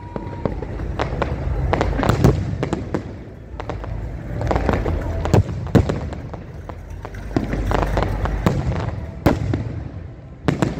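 Fireworks display: a dozen or so sharp bangs of bursting shells at uneven intervals, some in quick pairs, over a continuous low rumble.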